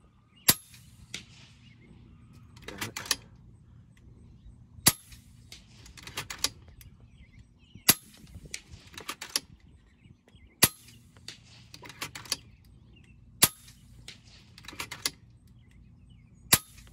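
Six shots from a pre-charged pneumatic FX air rifle fired at a steady pace, about one every three seconds, each a sharp crack. Between the shots come quick clusters of mechanical clicks as the action is cycled to load the next pellet.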